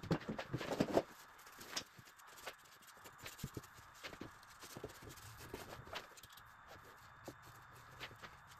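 Gloved hand spreading wood glue over pine pallet slats: soft rubbing with scattered light taps and clicks. A cluster of louder knocks comes in the first second.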